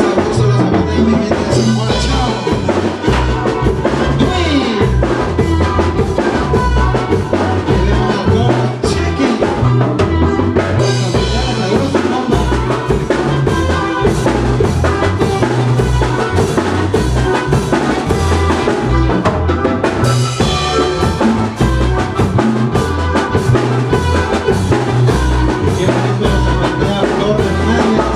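Band playing a chilena mixteca, with a drum kit keeping a steady beat under the melody instruments.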